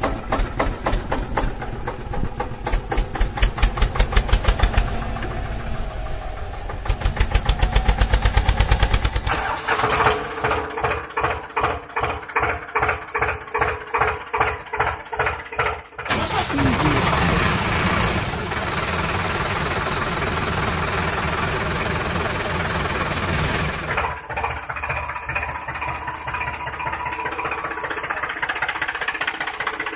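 Tractor engine sound effect, running with a chugging beat that changes pace several times, about four beats a second in the middle stretch, then a steadier, rougher run over the last part.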